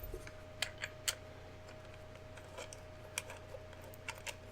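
Scattered light clicks and taps of small parts being handled, the sharpest about a second in and again about three seconds in, over a faint steady hum.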